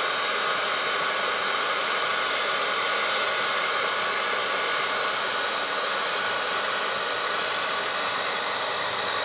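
Handheld hair dryer running steadily on hot air: an even hiss of rushing air with a faint steady motor whine.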